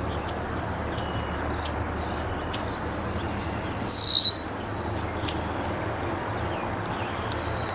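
A single loud, high whistle falling in pitch, about half a second long, about four seconds in, over steady outdoor background noise with faint high chirps.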